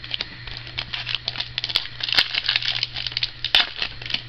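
Foil trading-card pack wrapper crinkling and tearing as it is opened by hand: a dense run of sharp crackles, loudest about two and three and a half seconds in.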